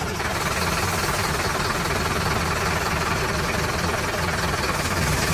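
Tanker truck's engine running steadily as the truck rolls slowly.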